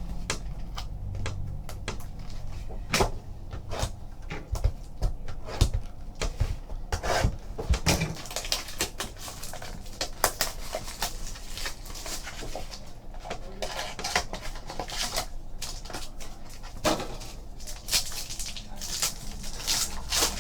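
Trading cards and card packaging being handled: an uneven stream of small clicks, taps and rustling as cards are opened, slid and sorted.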